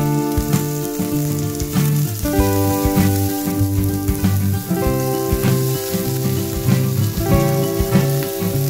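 Onion, garlic and pickled chilies sizzling in a stainless steel frying pan, with fried tofu cubes tipped in near the end. Background music with held chords is mixed in at about the same level.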